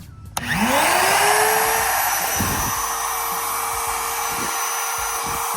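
Electric rotary tool switched on about half a second in. Its motor whine rises quickly in pitch as it spins up, then holds steady at full speed, running at what is probably just about full power.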